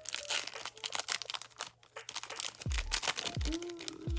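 Background music with deep bass notes that drop in pitch and a simple held melody, over short crackling rustles from a foil card-pack wrapper being handled and opened.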